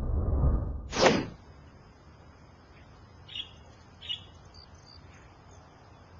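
A golf club swung on a tee shot: a rush of noise builds to a sharp swish and strike about a second in, on a shot the golfer then calls a flub. After it, faint outdoor background with two short bird chirps.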